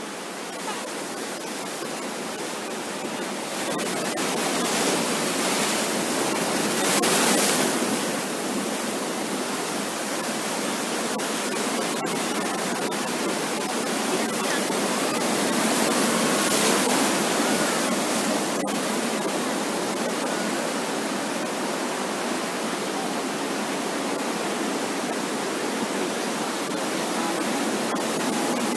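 Sea surf breaking and washing onto a beach: a steady rush of water that swells, loudest about seven seconds in and again around sixteen seconds.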